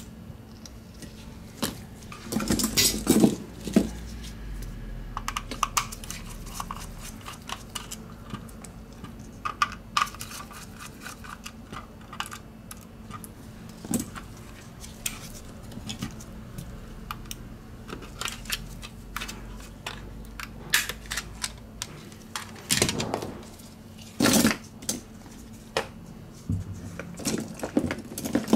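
A counterfeit Logitech G304 mouse being taken apart by hand: scattered clicks, taps and clatter of its plastic shell and small screws on a rubber work mat. There are louder bursts of handling about two to four seconds in and again from about two-thirds of the way through.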